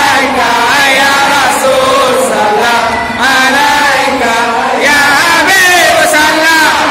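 A group of men chanting a Maulid dikir together in loud unison, their voices held in long phrases that rise and fall in pitch.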